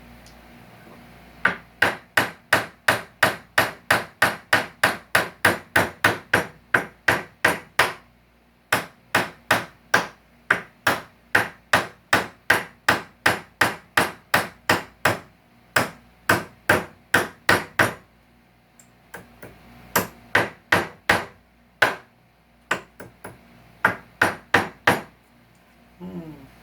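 Hammer striking nails in salvaged couch-frame wood: runs of sharp, quick blows about three a second, broken by several short pauses.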